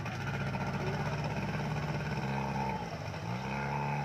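Outboard motor of an inflatable rescue boat running on a flooded river, its pitch dipping about three seconds in and then rising back as the throttle changes.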